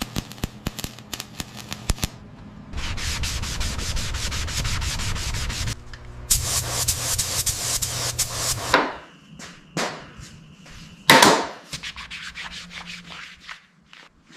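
Sanding and rubbing on a car's bodywork in several separate stretches a few seconds long. Scattered clicks and knocks fall between them, with one loud stroke about eleven seconds in.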